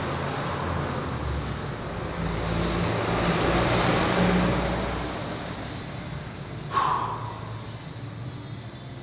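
A motor vehicle passing by: engine and tyre noise swells to a peak a few seconds in, then fades. About two-thirds of the way through there is one sharp metallic clank with a short ring.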